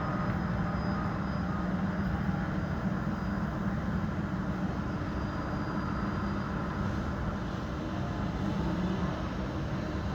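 New York City street traffic: a steady low rumble of passing vehicles.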